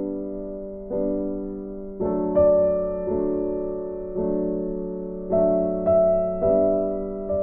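Background music: slow, gentle piano chords, a new chord struck roughly every second and each fading away.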